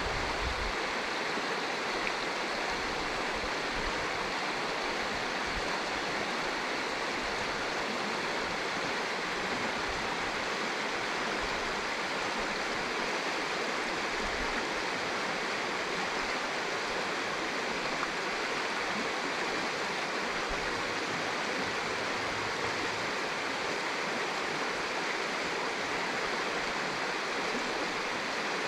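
The Dungeness River flowing, heard as a steady, even rush of water that holds unchanged throughout.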